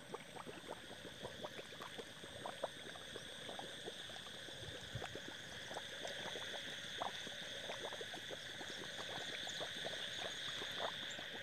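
Frogs and insects calling over a waterlogged field: many short frog croaks scattered throughout, over a steady high insect whirring that grows a little louder in the second half.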